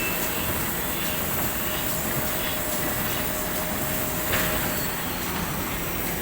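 A machine running steadily: an even rushing noise with a faint thin whine through it, and one sharp click about four seconds in.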